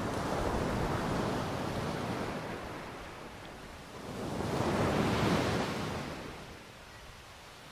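Ocean surf: waves breaking and washing in, with one wave swelling up and dying away about halfway through.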